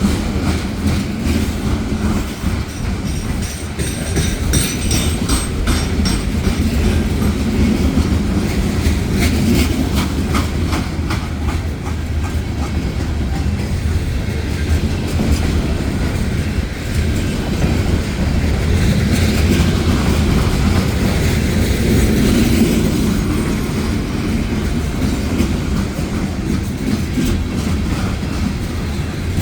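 Freight cars of a Union Pacific manifest train rolling past, a steady rumble with the wheels clicking rapidly over the rail joints.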